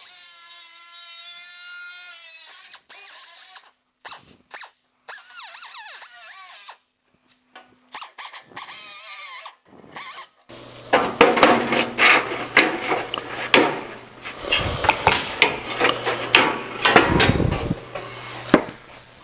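Cutoff tool's abrasive wheel on the steel door frame: first a steady high whine as the wheel spins, then a stretch of short broken sounds, then from about halfway a louder, rough grinding with irregular scratchy surges as the wheel cuts into the metal.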